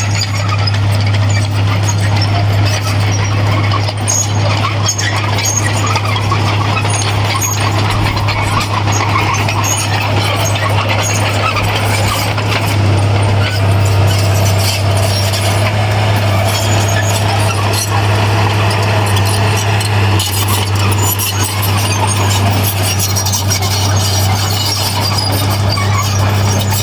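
Heavy diesel earthmoving machinery running steadily with a constant low drone, with metallic squealing and clanking over it, as from a bulldozer's tracks working fill soil.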